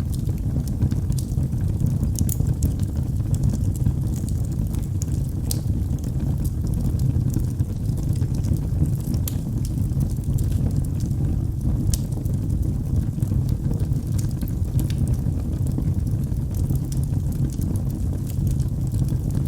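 Wood fire burning in a fireplace: a steady low rushing noise of the flames with scattered sharp crackles and pops from the burning wood.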